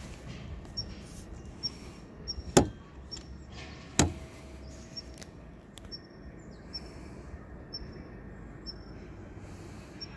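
Two sharp knocks about a second and a half apart over a steady low background, with a faint short high chirp repeating roughly once a second.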